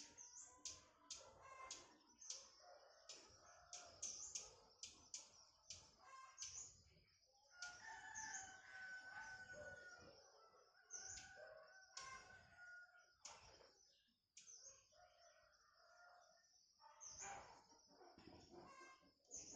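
Faint bird calls: many short, sharp chirps in quick succession, then longer drawn-out calls about eight seconds in and again around eleven seconds, over a steady high-pitched drone.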